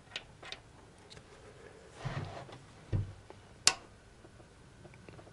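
Socket wrench on an extension working the camshaft bearing-cap nuts of a cylinder head, loosening them a little at a time. A few light metallic clicks, two dull knocks about two and three seconds in, then one sharp metal click.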